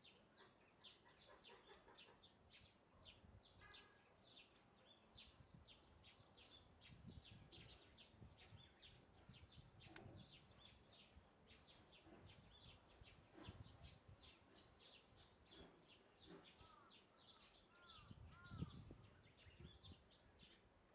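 Faint small birds chirping, quick high chirps repeating about three times a second, with a few short arched whistles near the end. A few low bumps break in, the loudest near the end.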